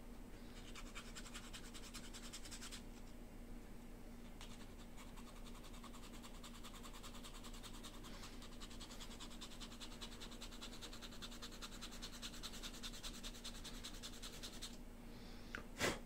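Hand sanding of a small wooden model part: rapid back-and-forth scratching strokes, first in a short bout and then in a longer run, as the inside of the piece is sanded down to follow a curve. A short tap near the end.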